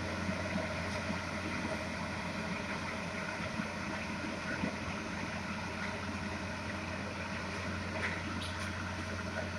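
Diesel engine of a Plasser & Theurer ballast regulator running steadily as the machine works slowly along the track, a constant low hum.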